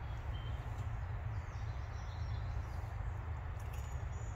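Birds chirping faintly, a few short calls scattered through, over a steady low rumble.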